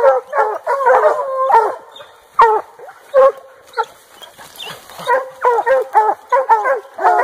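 A pack of small hunting dogs barking and yipping in quick, overlapping barks at the foot of a tree, baying at game treed up the trunk. The barking thins out for a couple of seconds in the middle, then picks up again.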